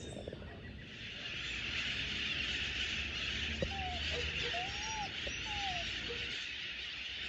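A crowd of birds chattering and calling together in a steady morning racket, with a few clear whistled notes that rise and fall near the middle.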